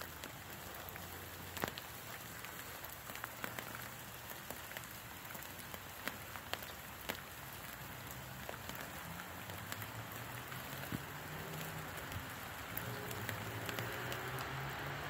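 Tube sparkler burning with a steady fizzing hiss, dotted with scattered sharp crackles and pops as its metal sparks shower down; it grows a little louder over the last few seconds.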